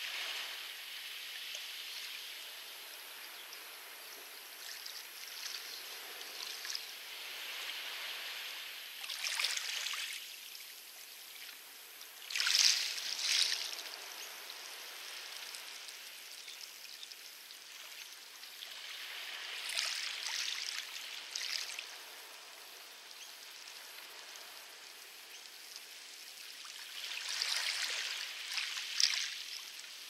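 Small waves washing onto a pebble beach: a steady hiss of moving water with four louder surges of wash.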